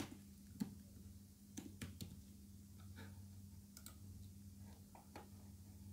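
Scattered soft clicks of computer keys and a mouse, about nine in all, over a faint steady low hum.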